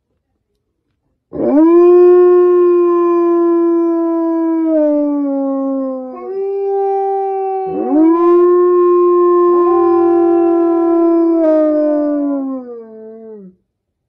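Wolves howling: first one long howl held steady that sinks in pitch at its end, then more howls that swoop up and hold, two voices overlapping at slightly different pitches. The howls die away near the end.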